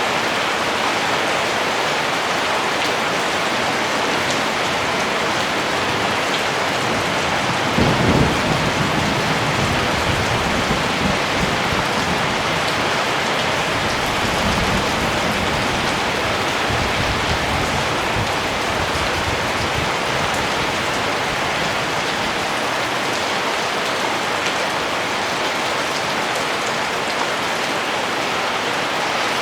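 Steady, even rain falling. About eight seconds in, a low rumble of thunder rolls in and fades away over the next ten seconds or so.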